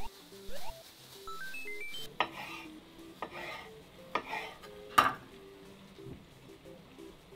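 Kitchen knife slicing cherry tomatoes on a wooden cutting board: four cuts, each a short sharp knock of the blade on the board with a brief wet scrape, the sharpest about five seconds in. Soft background music with short held notes plays underneath.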